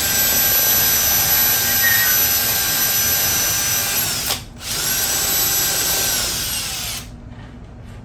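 Cordless drill running in reverse, driving a Surewinder that unwinds a garage door torsion spring to take the tension off it. It makes two long, steady whining runs, with a brief pause about four and a half seconds in, and stops about a second before the end.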